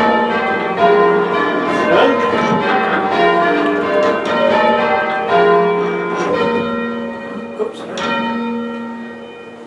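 Six church bells rung full circle in a change-ringing peal, each striking in turn with long ringing overtones. The strikes grow fewer in the last few seconds and the sound fades away as the ringing ends.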